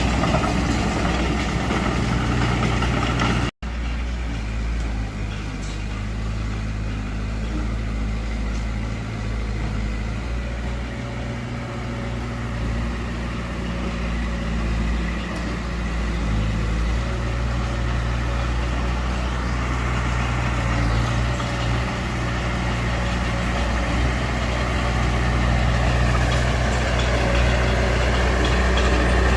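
Small bulldozer's diesel engine running steadily as it works, with a brief complete cut in the sound about three and a half seconds in.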